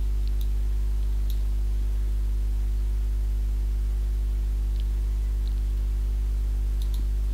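Steady electrical mains hum on the recording, low and unchanging, with a few faint computer-mouse clicks scattered through it.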